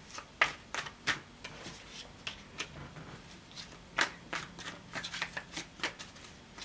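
A tarot deck being shuffled by hand: a string of sharp, irregular card clicks and snaps.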